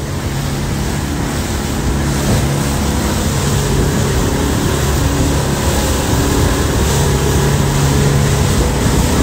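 Boat under way on choppy water: its engine runs with a steady low hum beneath loud wind on the microphone and rushing water.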